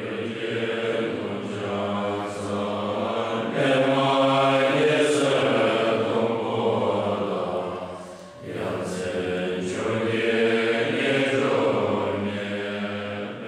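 Voices chanting a Buddhist prayer in long, drawn-out phrases, breaking off briefly about eight seconds in and then going on.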